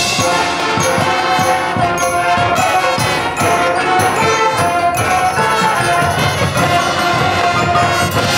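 Marching band playing live: sustained brass chords over drums and mallet percussion keeping a steady beat.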